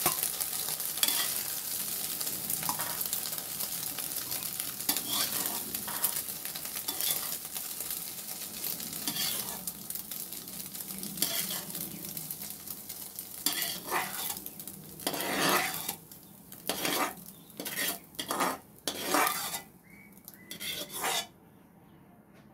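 Scrambled egg (egg bhurji) sizzling in an aluminium kadhai while a metal spatula scrapes it out into a steel plate in repeated strokes against the pan. The sizzle dies away about two-thirds of the way through, leaving separate spatula scrapes and knocks that stop shortly before the end.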